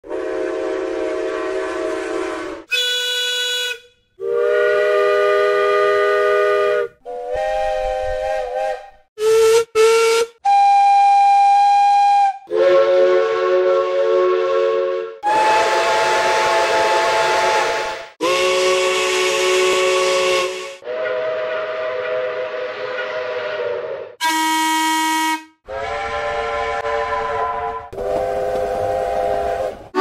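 A run of about fourteen different steam locomotive whistle blasts, spliced one after another with abrupt cuts. Each lasts from a fraction of a second to about three seconds. Most are multi-chime chords, some are single-note, and several have a breathy steam hiss.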